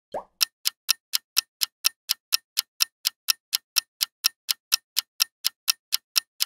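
Countdown-timer sound effect: a clock ticking evenly at about four ticks a second. A single short pop comes just before the ticking starts.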